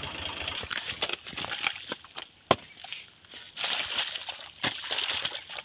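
A long-handled hoe chopping and scraping damp, muddy earth in irregular strokes, with a couple of sharp strikes.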